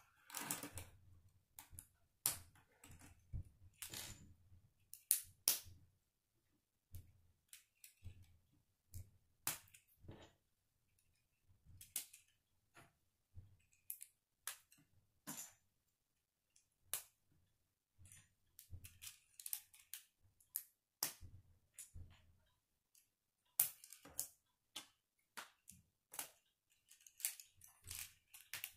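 Plastic K'nex rods and connectors clicking as they are snapped together and handled, in irregular sharp clicks with short pauses between them.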